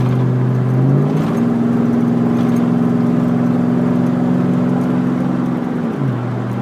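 Chevrolet Silverado pickup's engine through a custom exhaust with hollowed-out glass pack mufflers, heard from inside the cab. The revs climb over the first second, hold steady under power, then drop back about six seconds in.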